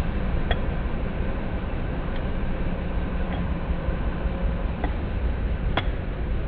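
Suzuki GD 110S single-cylinder four-stroke motorcycle engine running steadily, with a few sharp clicks at irregular moments. The engine noise is put down to timing chain vibration.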